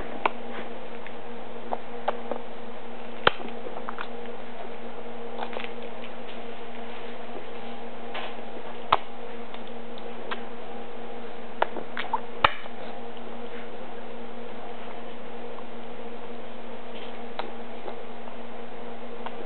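Scattered sharp taps of a baby's hands on a plastic high-chair tray, a few seconds apart and loudest about three, nine and twelve seconds in, over a steady low hum.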